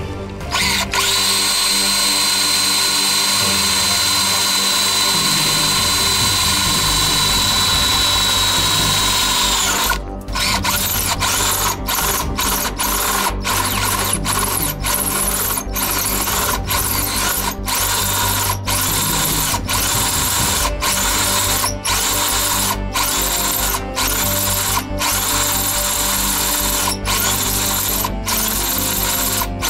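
Power drill drilling into a trailer's painted metal fender: it runs steadily with a high whine for about nine seconds, then keeps drilling with the trigger briefly let off about once a second.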